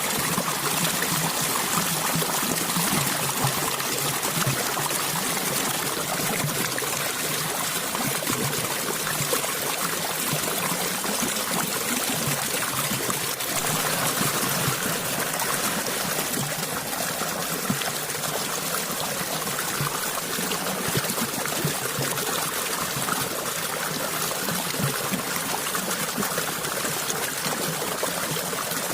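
Water flowing and trickling steadily, like a small stream running over stones.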